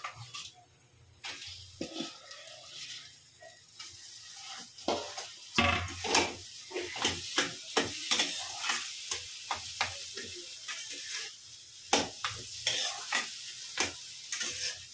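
Metal spatula scraping and knocking against a metal kadai as spiced boiled-potato samosa filling is stirred and mashed over a gas flame, with a sizzle of hot oil underneath. The strokes come in a quick, irregular run that picks up about five seconds in.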